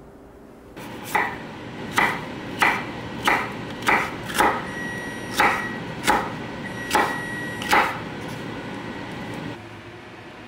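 Kitchen knife slicing a bell pepper on a wooden cutting board: about ten sharp knocks of the blade striking the board, roughly one every two-thirds of a second.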